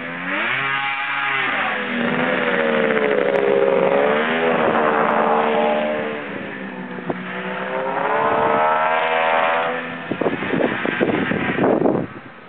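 1995 Arctic Cat ThunderCat 900 snowmobile's three-cylinder two-stroke engine revving up and down as it is ridden, its pitch rising and falling several times. Near the end comes a stretch of rough crackling, then the sound drops away.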